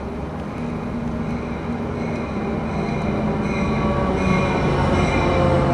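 Amtrak Pacific Surfliner train led by an EMD F59PHI diesel locomotive approaching the station, its engine drone growing steadily louder. High steady squealing from the wheels and brakes joins in about two seconds in as the train slows to stop.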